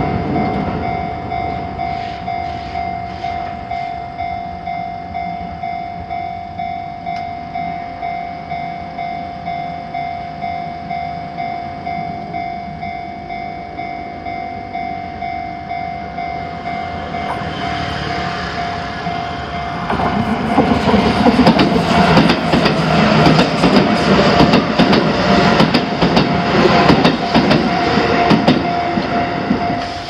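Japanese level-crossing warning bell ringing steadily, about one and a half strokes a second. A Shin-Keisei Electric Railway train approaches, its running noise building about halfway through and growing loud with clacking wheels over the last third.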